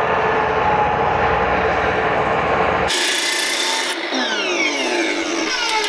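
Large circular beam saw cutting along a wooden sill plate, its motor running steadily under load. About two-thirds of the way through, the saw is released and its motor spins down in a long falling whine, followed by a few clicks.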